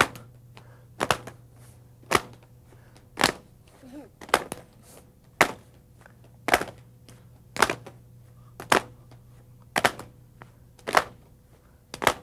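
A group of children and an adult striking with their hands in unison in a slow, steady beat, about one strike a second. Some strikes are doubled where the children are not quite together with the leader.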